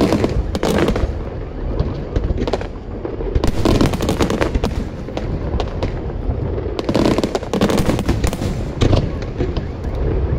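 Aerial fireworks shells bursting in a dense barrage, many sharp bangs in quick succession, heaviest about a third of the way in and again in the second half.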